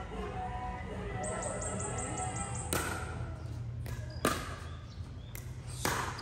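Three sharp hits about a second and a half apart: shots being exchanged back and forth in a doubles rally.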